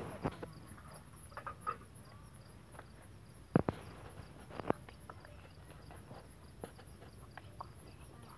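Crickets chirping steadily, a faint even pulse, with a few sharp knocks, the loudest about three and a half seconds in and again about a second later.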